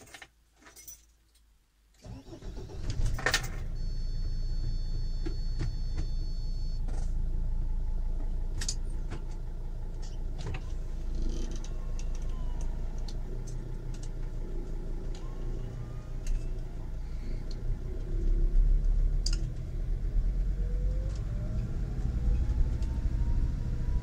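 A camping car's engine starting after a short quiet spell, then running at idle, with a steady high beep for about three seconds just after it starts. Near the end the engine grows louder and a rising whine comes in as the vehicle pulls away.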